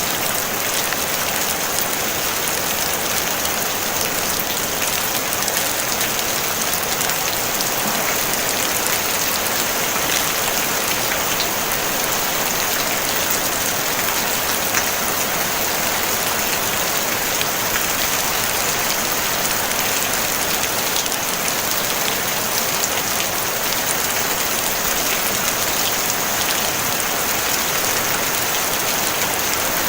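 Steady rain falling on a tin roof: a dense, even patter of many small drops, with no thunder.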